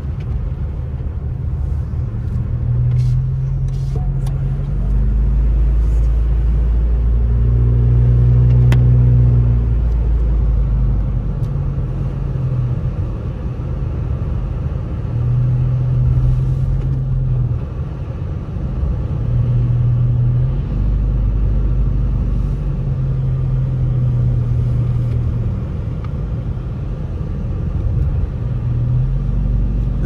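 A car driving on a snowy, slushy road, heard from inside the cabin: a steady low rumble of the snow tyres and road, with an engine hum that comes and goes in stretches as the throttle changes.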